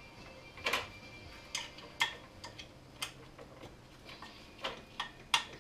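Sharp metallic clicks of a wrench fitted with a crow's foot being worked on the snowmobile's Y-pipe nuts, about ten of them at uneven spacing.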